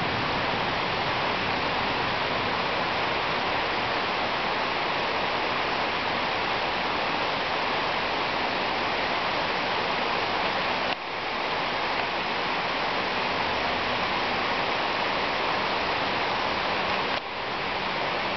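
Heavy downpour during a thunderstorm: a steady hiss of rain pouring down, with two brief dips in level partway through.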